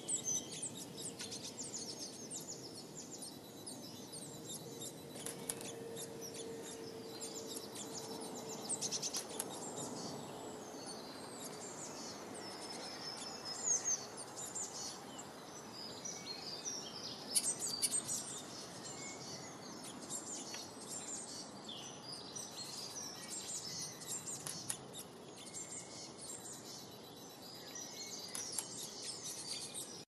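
Small songbirds chirping and calling, many short high notes and quick trills overlapping throughout, with a faint steady low tone underneath for the first ten seconds or so.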